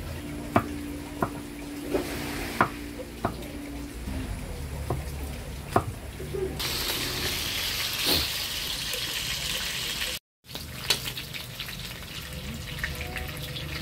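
A cleaver chopping garlic on a wooden chopping block, with irregular sharp knocks for the first six seconds or so. Then a steady hiss of chicken pieces frying in a steel wok takes over, with the light clicks and scrapes of a metal spoon stirring them near the end.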